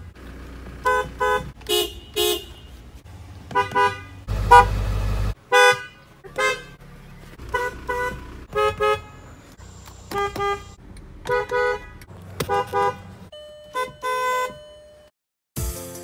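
Car horns beeped by hand on several vehicles in turn, including a 2018 Dodge Ram 1500 and a 2000 Volkswagen Jetta TDI. Each mostly gives short taps of two or three quick beeps on a two-note tone, with one longer, louder blast about four and a half seconds in. Music starts just before the end.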